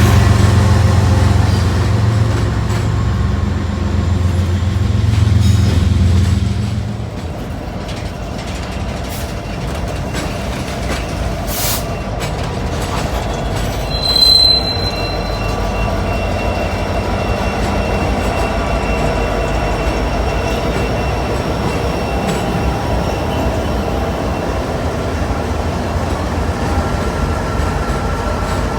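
Freight train passing: the diesel locomotives' engines drone for the first seven seconds or so, then the cars roll by with steady wheel-on-rail noise and a brief high wheel squeal about halfway through.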